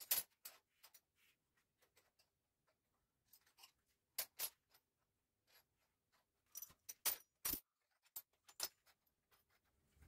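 Metal spoons and forks clinking against each other and the bench as they are handled and laid out: scattered short, sharp clinks at uneven intervals, with quiet gaps between.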